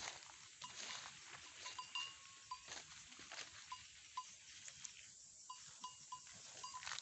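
Goat herd grazing: faint rustling with scattered short, high pings throughout.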